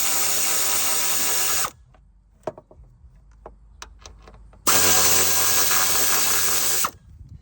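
A handheld power drill runs at a steady speed in two bursts. The first stops abruptly about two seconds in; the second runs for about two seconds starting around five seconds in. Faint clicks and taps of tools on metal fall in the gap between them.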